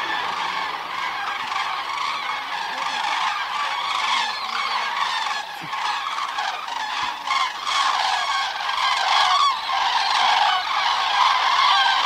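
Large flocks of common cranes flying over, many birds giving trumpeting calls at once in a dense, continuous chorus that grows louder toward the end.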